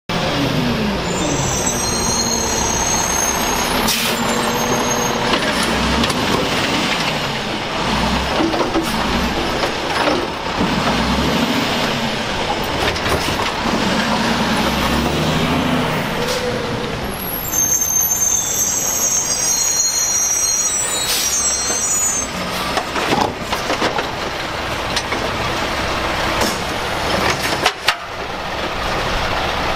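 Automated side-loader garbage truck with a Curbtender body working at the curb: its engine runs and revs up and down as the hydraulic arm grabs and lifts a cart, with air-brake hisses and several clunks. High squeals come near the start and again about two-thirds of the way through.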